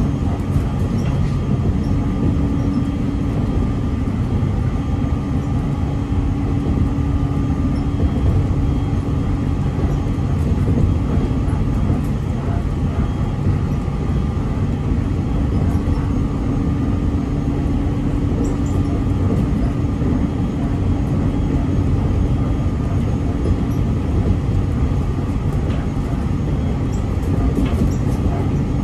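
Aoimori Railway electric train running at speed, heard from inside the carriage: a steady low rumble of wheels on the rails with a steady low hum that fades through the middle stretch and comes back.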